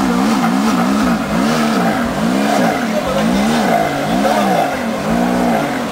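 Mid-engined Ferrari V8 being revved in quick repeated blips, the engine note rising and falling about twice a second.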